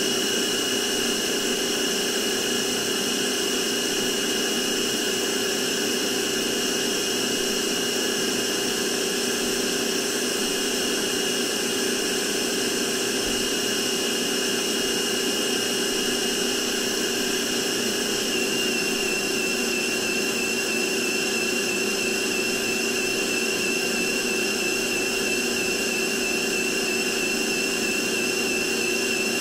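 Novete VT-DH003 cordless handheld vacuum cleaner's motor running steadily, a rushing whir with a high whine over a lower hum. Past the middle the whine drops slightly in pitch and starts to waver.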